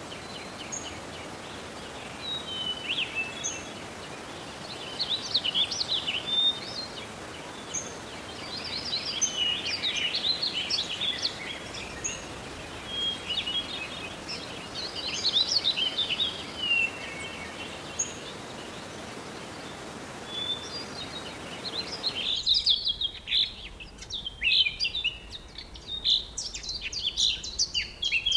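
Several birds chirping and singing in quick, varied high phrases over a steady background hiss. About three-quarters of the way through, the hiss drops away abruptly, as at a change of recording, and the birdsong carries on, busier toward the end.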